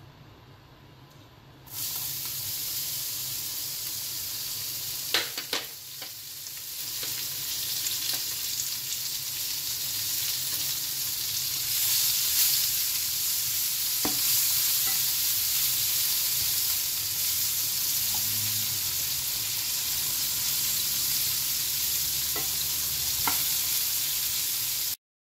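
Sliced red onions dropped into hot oil in a nonstick frying pan, starting a loud, steady sizzle about two seconds in. The onions are stirred with a plastic spatula that clicks against the pan a few times. The sizzle cuts off suddenly just before the end.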